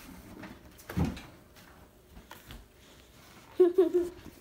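Quiet room with a child's brief voice sounds, once about a second in and again near the end, short and broken.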